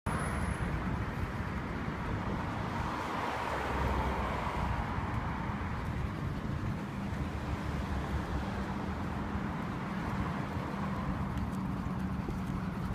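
Steady road traffic noise from cars passing on the adjacent road, swelling briefly about four seconds in as a vehicle goes by.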